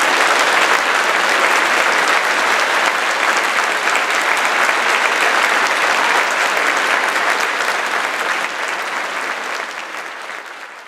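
Audience applauding in a concert hall, a dense steady clapping that fades out near the end.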